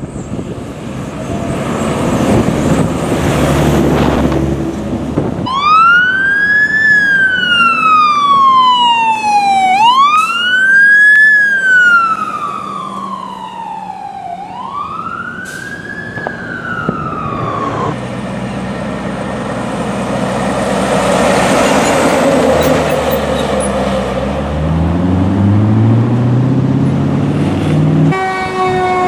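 Fire trucks on an emergency run: a heavy truck engine running at first, then a siren wailing through three cycles, each rising quickly and falling slowly. After that comes a rushing spell with the engine revving up, and another siren starts near the end.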